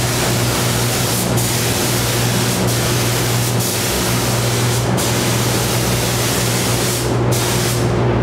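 Gravity-feed paint spray gun hissing as it sprays clear coat, in passes broken by about five short pauses where the trigger is let off, then cutting off at the end. A steady low hum runs underneath.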